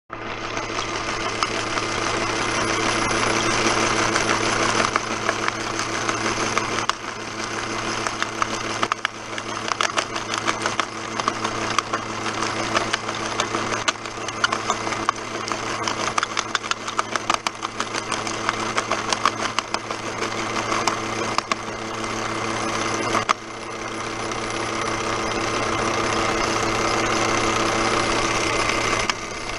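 Homemade model jaw crusher running: its electric motor and belt drive hum steadily, with rapid sharp cracking and clatter as pebbles are broken between the jaws. The cracking is densest through the middle stretch and thins out toward the end.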